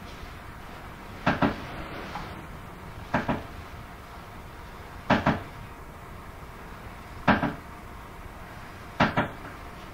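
Sharp double knocks on a hard surface, a pair about every two seconds, five times, over a steady background hiss.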